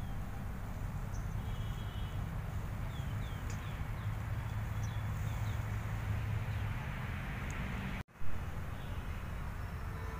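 Outdoor ambience: a steady low rumble with scattered short bird chirps. The sound cuts out for an instant about eight seconds in and comes back with a brief loud burst.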